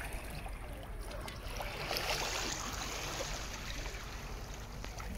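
Shallow sea water lapping and washing close to the microphone, with a brief swell of splashy hiss about two seconds in.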